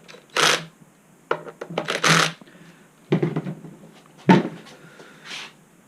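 Handling noises from working on the board: several brief rustling, scraping bursts and a sharp knock a little after four seconds in.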